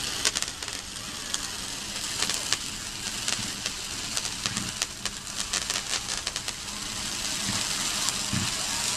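Fireworks hissing steadily, with bursts of sharp crackles that come thickest in the middle.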